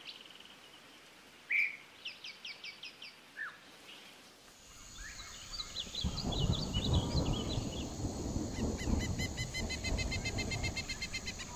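Recorded nature ambience: birds chirping in short calls and trills. About four and a half seconds in, a rustling noise swells up, with a steady high whine and a fast, even run of repeated chirps over it near the end.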